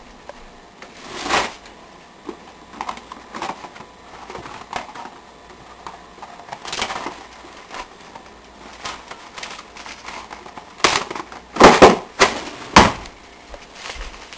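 Plastic cling wrap being pulled from its box and handled: scattered crinkles and rustles, with a burst of louder crackling near the end.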